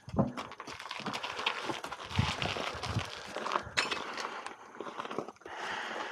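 Boots and a horse's hooves shuffling and crunching on dry gravel, with irregular knocks and a few dull thuds of footfalls, as a farrier steps in and lifts the horse's front hoof.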